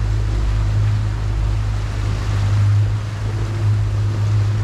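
Outboard motor running steadily under way, a constant low hum, with the rush of water and wind around the moving boat.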